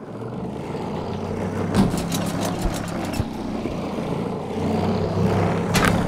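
Motor of a homemade basketball-return machine running steadily, driving the wheels that spit the ball back. A basketball thuds twice, about two seconds in and again near the end.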